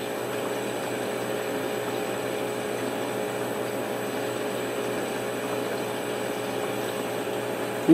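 Small handheld butane torch burning with a steady hiss while its flame heats a thin copper tube to anneal it.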